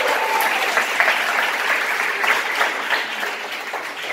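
Audience applauding, many hands clapping at once, dying down near the end.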